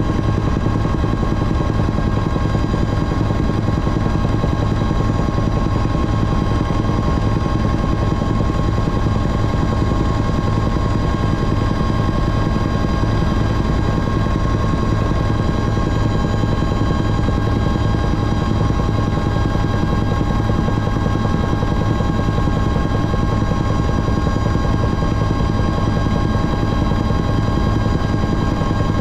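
Helicopter in steady flight, heard from on board: the constant rotor and engine noise with a steady high whine over it, unchanging throughout.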